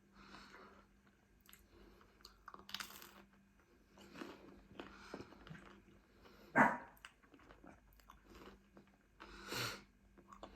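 Close-up biting and chewing of pizza crust, a run of short crunchy bites and chews about a second apart, with one sharper, louder sound about six and a half seconds in.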